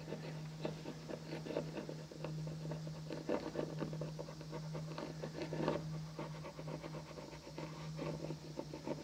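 Caulking wheel rolled along a seam between wooden hull planks, pressing twisted cotton caulking into it: a quiet scratchy rubbing in many short, irregular strokes, over a steady low hum.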